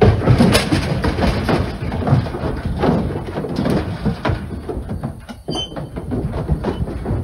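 Black Hereford cattle loading into a metal livestock trailer: a steady run of irregular hoof clatters, knocks and rattles on the trailer floor and panels, with a short squeak about five and a half seconds in.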